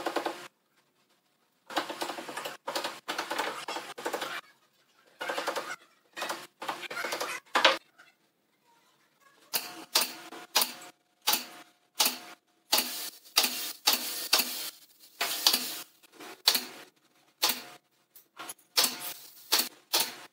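Corded handheld power tool run in many short bursts on a wooden bench, each from a fraction of a second to about two seconds long, with silent gaps between. The bursts come thicker in the second half.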